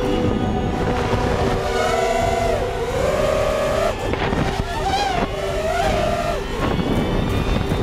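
Brushless motors and propellers of a 210-size FPV racing quadcopter whining, heard from the onboard camera with wind rush. The pitch rises and falls repeatedly as the throttle is worked through flips and climbs, with quick sharp swoops about halfway through.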